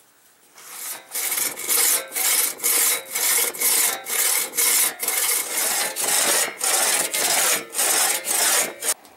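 A four-foot one-man crosscut saw cutting through a birch log by hand, in steady back-and-forth strokes at nearly two a second. The strokes start about a second in and stop near the end.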